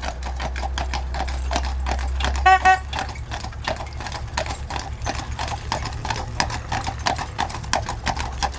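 Hooves of two draft horses clip-clopping on asphalt at a walk as they pull a wooden horse-drawn caravan. About two and a half seconds in there is a brief, loud, high-pitched squeal.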